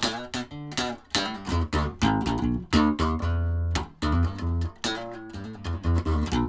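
Yamaha RBX470 active electric bass played through a bass amp: a quick run of plucked notes, several a second, with a strong deep low end. The strings are not in tune. It is the test of freshly rewired electronics, which are now working.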